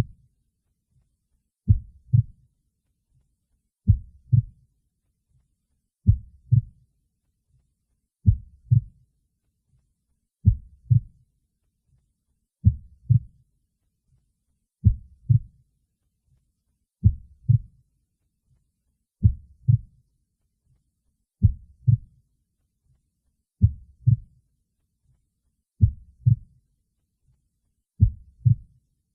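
Heartbeat: slow, even double thumps (lub-dub), low in pitch, one pair about every two seconds.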